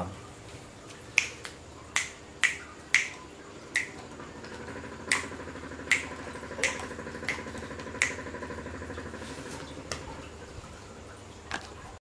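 About a dozen sharp, irregular clicks and taps around a dove's cage and its plastic feed cups. A faint steady hum runs underneath from about four seconds in.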